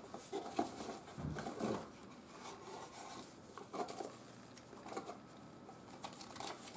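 Hands opening a small cardboard box: the lid scrapes and flaps open, then a paper instruction sheet and plastic packing are handled. The result is irregular rustles, scrapes and light taps, busiest in the first two seconds.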